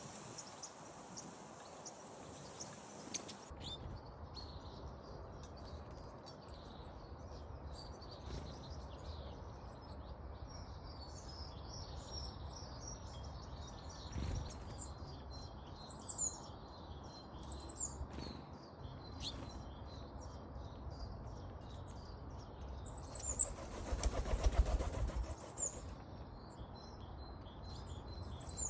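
Small garden songbirds chirping and twittering, many short high calls overlapping, over a low outdoor rumble. A brief louder rushing noise comes about three-quarters of the way through.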